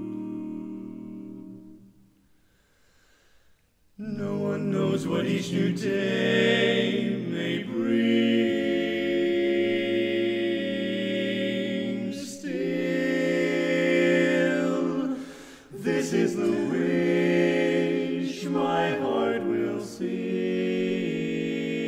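Barbershop quartet singing a cappella in four-part close harmony. A held chord fades out about two seconds in, there is a short silence, and the voices come back in sharply about four seconds in, carrying on with brief breaths between phrases.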